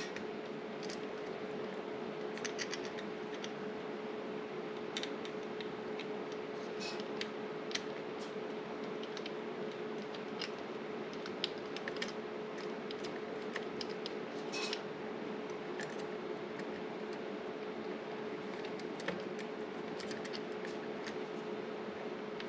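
Small, scattered clicks and scrapes of metal door-lever hardware being handled as a mounting screw is worked into its hole by hand, over a steady background hum.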